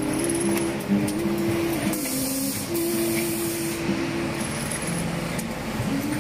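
A PET bottle blow moulding machine running. Pneumatic air hisses in spells and the preform transfer mechanism clicks, over a low hum that shifts in pitch.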